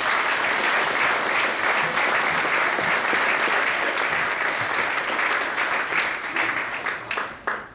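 Audience applauding, a dense steady clapping that thins to a few scattered claps near the end and then stops.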